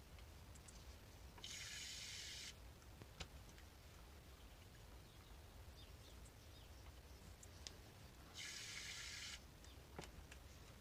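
Two short hisses of about a second each, one about a second and a half in and another about seven seconds later: a syringe squirting water into the boiler filler of a live-steam model locomotive. A few faint clicks lie between them, over near silence.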